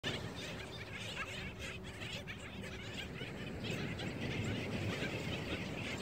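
Black skimmer colony calling: many short calls overlapping one another, over a steady low background rush.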